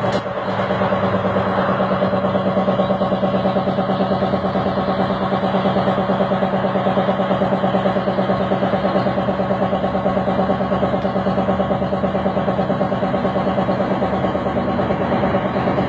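A motor running steadily with a rapid, even pulsing beat, with a sharp click right at the start.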